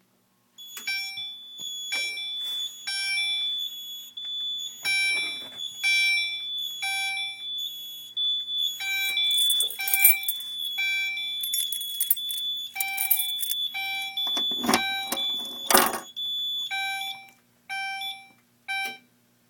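Fire alarm test system in alarm: horns sound in a repeating pulsed pattern over a steady high-pitched beep. A few loud knocks come near the end, then the alarm sounds cut off.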